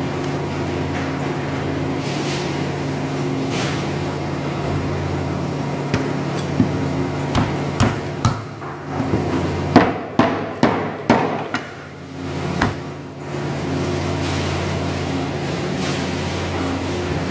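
Meat cleaver chopping through a rack of lamb ribs on a cutting board: a run of about ten sharp chops in the middle, over a steady hum.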